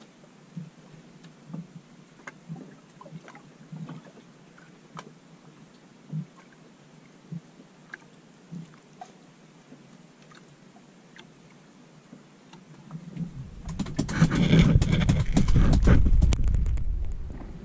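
Faint scattered light knocks. Then, about thirteen seconds in, wind buffets the microphone for a few seconds as a loud low rumble that swells and dies away.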